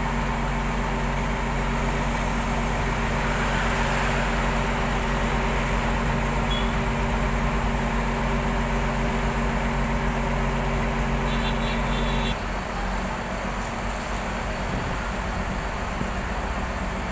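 Rear-mounted Mercedes-Benz diesel bus engine idling steadily, a low even hum. About twelve seconds in it cuts off abruptly to a quieter, noisier background.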